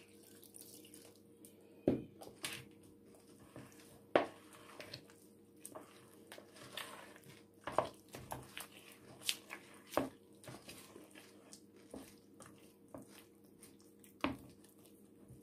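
Hands mixing and kneading a wet flour dough in a plastic bowl: soft squelching with scattered sharp knocks of hand and fingers against the bowl. A faint steady hum lies underneath.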